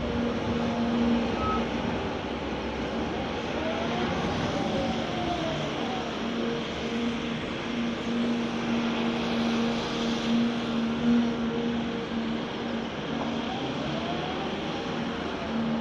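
Caterpillar hydraulic excavator running steadily under work, its diesel engine holding a constant hum while a fainter whine rises and falls in pitch a few times as the hydraulics are worked.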